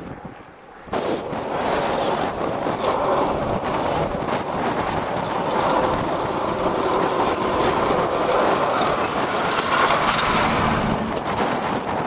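Snowplow truck driving past close by on a snowy highway, a heavy rolling rumble that starts suddenly about a second in and is loudest shortly before the truck passes beneath.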